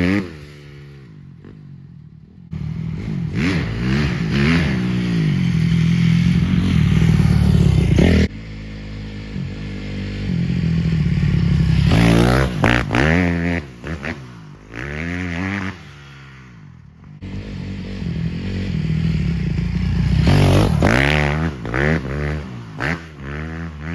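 Honda CRF250R dirt bike's four-stroke single-cylinder engine revving hard as the bike accelerates past and away, the pitch climbing and falling through the gears, over several passes. The sound jumps abruptly in level a few times where clips are cut together.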